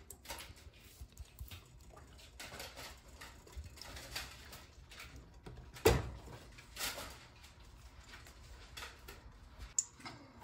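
Scattered light taps and clicks of kitchen items being handled, with one sharp knock about six seconds in and a softer one a second later, over a faint low hum.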